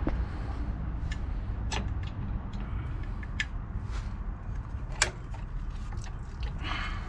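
Scattered sharp clicks and taps as the drum brake shoe and its hold-down pin are handled and seated against the backing plate. They come over a steady low background rumble, with the loudest click about five seconds in and a short scraping rustle near the end.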